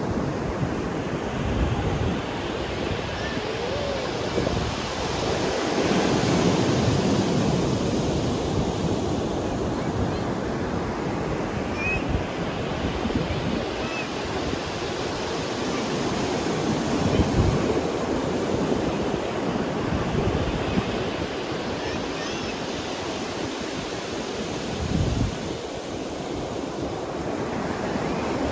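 Ocean surf breaking and washing onto a sandy beach, a continuous rushing that swells and recedes as each set of waves comes in.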